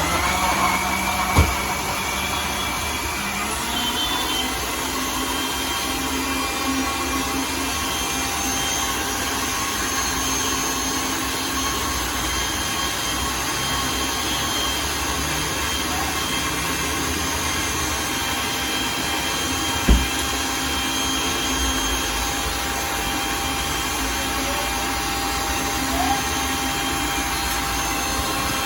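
Electric blender motor running steadily while blending a papaya milkshake. There is a short knock about a second and a half in and another about twenty seconds in.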